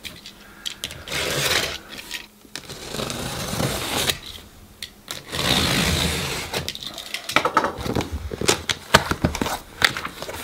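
Box cutter slitting the packing tape on a cardboard box in three long strokes, followed by a run of short sharp rustles and clicks as the cardboard flaps are opened and the paper inside handled.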